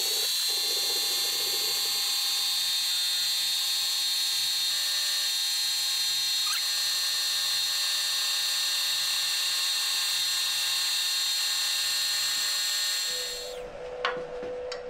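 Bridgeport milling machine's spindle and end mill running at speed with a steady high whine, spinning clear of the work. About 13 seconds in the machine is switched off and winds down quickly, followed by a single light click.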